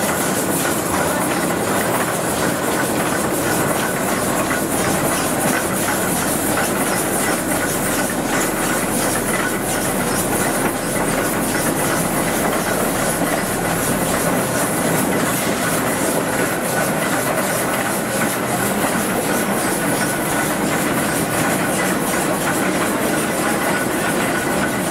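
Steam crane locomotive 1064 working under steam: a steady hiss of steam over a fast, even clatter from its engine and running gear, continuous and unbroken.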